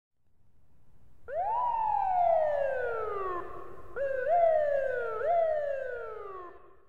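Emergency vehicle siren wailing. About a second in it jumps up in pitch and then slowly falls. It follows with a few shorter rise-and-fall sweeps and fades away near the end.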